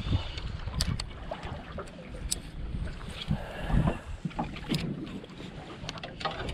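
Water lapping against a small aluminium boat's hull with wind buffeting the microphone, giving a low, uneven rumble with a louder bump near the start and another just before the middle, plus a few sharp clicks scattered through.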